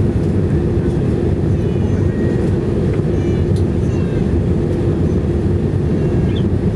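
Steady cabin drone of an Airbus A319-115 in flight, heard from inside the passenger cabin: engine and airflow noise with a steady hum running through it. Faint passenger voices sit underneath.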